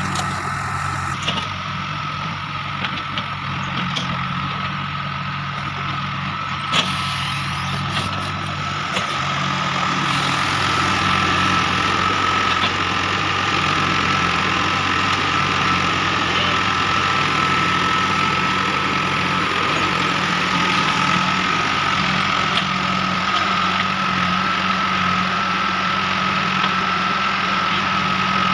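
JCB 3DX backhoe loader's diesel engine running steadily, with a steady high whine over it. A single sharp knock comes about seven seconds in, and the engine gets louder about ten seconds in.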